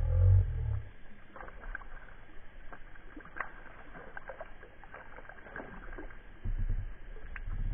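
Handling sounds in a fishing kayak: a low hollow thump at the start, then scattered light taps and clicks, and a few low bumps near the end.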